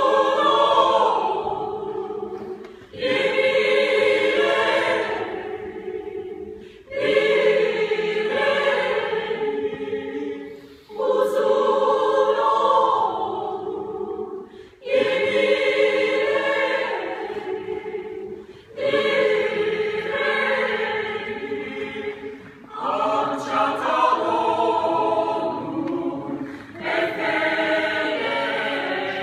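Mixed choir of women's and men's voices singing a cappella, in repeated phrases about four seconds long that each start strongly and then fade away.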